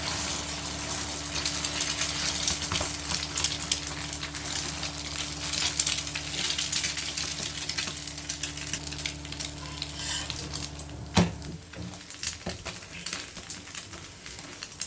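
Egg and paratha frying in plenty of oil on a dosa tawa: a dense, crackling sizzle. A sharp knock about eleven seconds in, after which the sizzle is quieter.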